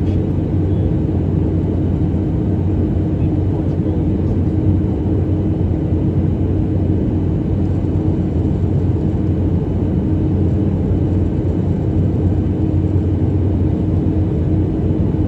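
Airliner cabin noise in flight: a steady, even rumble with a constant low hum.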